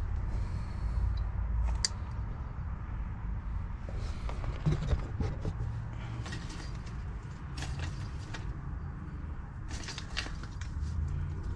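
Scattered light metallic clicks and scrapes of rear drum brake shoe hardware being fitted by hand, the shoe and hold-down pin knocking against the backing plate, over a low steady background rumble.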